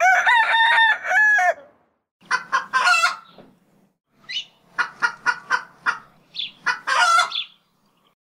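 A rooster crows, then a chicken clucks in two runs of short, quick clucks, ending with another longer call.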